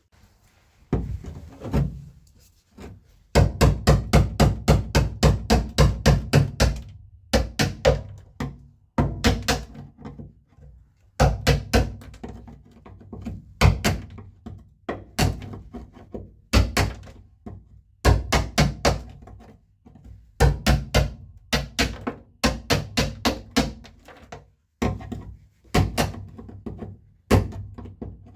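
Hammer driving a screwdriver to chip old sound deadening off a Classic Mini's steel floor pan: runs of quick blows, about five a second, broken by short pauses.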